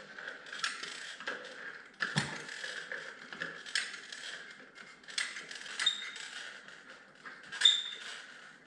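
Irregular mechanical clicks, taps and knocks over a faint hiss, with sharper knocks about two seconds in and near the end.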